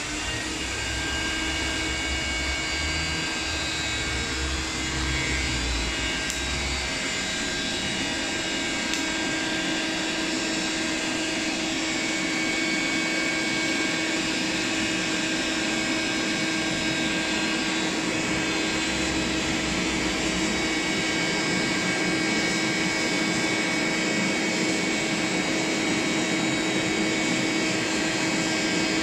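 Electric 'dragon's breath' air blower switched on and running steadily, forcing air into a burned-down charcoal fire to bring its heat back up. A steady rushing hum with a fixed whine in it, growing slightly louder about twelve seconds in.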